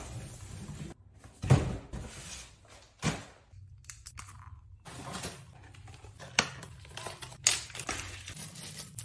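Plastic and paper packaging being unwrapped by hand: irregular crinkling and tearing, with a few sharper, louder crackles.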